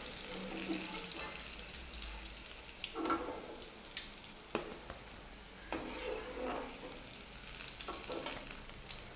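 Hot oil sizzling steadily as fish cutlets deep-fry in an aluminium kadai, with a few short clinks of a metal slotted skimmer against the pan as the cutlets are lifted out.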